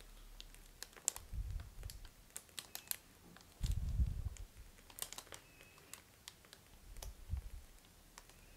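Plastic piping bag crinkling faintly as it is squeezed to pipe whipped cream, with scattered small clicks. Three soft low thumps come about a second, four seconds and seven seconds in; the one at four seconds is the loudest.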